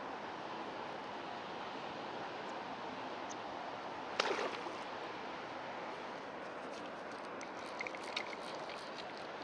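Steady outdoor hiss with one sharp knock about four seconds in, then a short run of small clicks near the end from the fly reel being handled.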